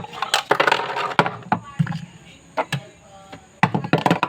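A scatter of sharp knocks and taps from handling cookware and food as something is added to a pan, with brief bits of voice between them.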